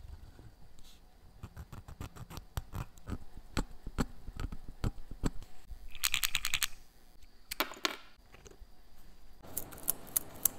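Small sharp clicks and taps from handling a Rolex Datejust's automatic movement. About six seconds in comes a quick metallic rattle of the automatic rotor swinging and scraping, a sign that it is rubbing. Near the end, the loose links of the two-tone Jubilee bracelet rattle.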